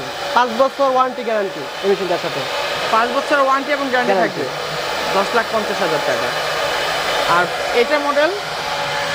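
CNC router carving a wooden panel: the spindle runs with a steady whir while the stepper drives whine in short glides that rise and fall in pitch as the gantry speeds up and slows down between cuts.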